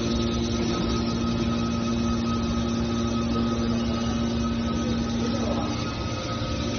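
Hydraulic scrap aluminium baler running, a steady machine hum with a constant pitch.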